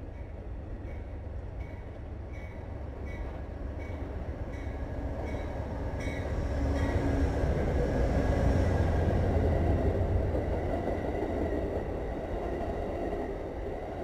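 An Amtrak passenger train passing close by behind GE Genesis P42 diesel locomotives: a regular run of wheel clicks over rail joints, then the locomotives' diesel rumble building about six seconds in, loudest around eight to ten seconds, and easing as the passenger cars roll past.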